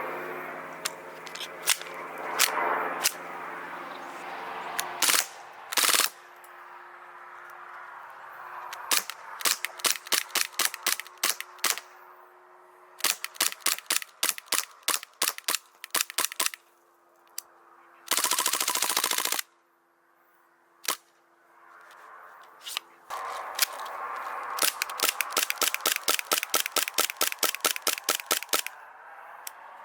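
Airsoft guns firing: single shots and quick strings of several shots a second, with one dense full-auto burst lasting about a second and a half, around two-thirds of the way through.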